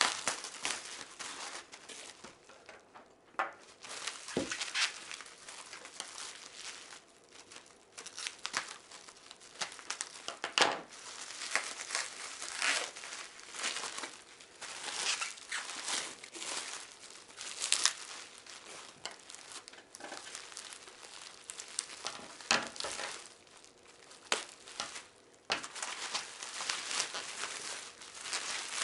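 Packaging being unwrapped by hand: irregular crinkling and rustling with a few tearing sounds, coming and going throughout.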